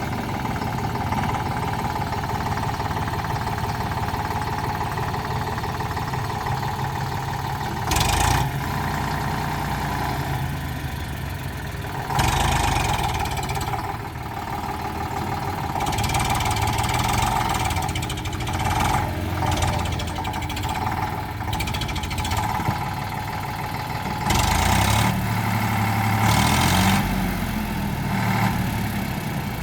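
Eicher 485 tractor's three-cylinder diesel engine running steadily, with a few louder spells of a second to a few seconds each.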